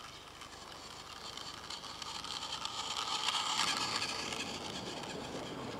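Battery-powered Thomas & Friends Rusty toy engine whirring along plastic toy track with a fine rapid clicking. It grows louder as it comes near and is loudest as it passes close by about three and a half seconds in.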